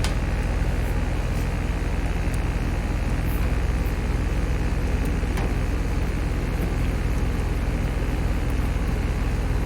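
Heat pump outdoor unit running steadily: a low, even compressor hum under the rush of the condenser fan.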